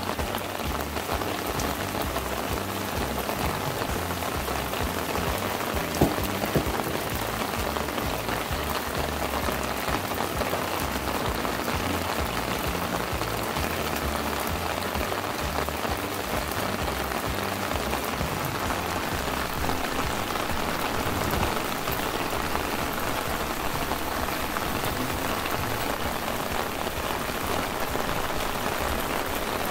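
Steady rain falling on garden plants and potted succulents, with two sharp taps about six seconds in.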